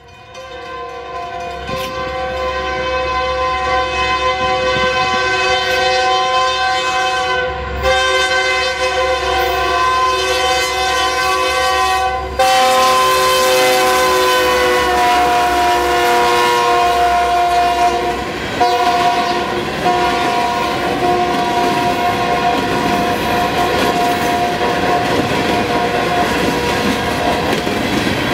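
Union Pacific diesel locomotive's multi-note air horn blowing long and nearly unbroken, with a few brief breaks. Its chord drops in pitch about halfway through as the locomotives pass. Under it the train's wheels rumble and clickety-clack on the rails, growing stronger in the second half.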